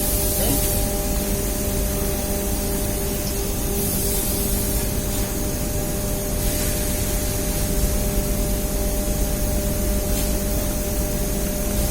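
Steady machinery drone with a constant hum, broken by brief hisses near the start, about four seconds in and again about six and a half seconds in.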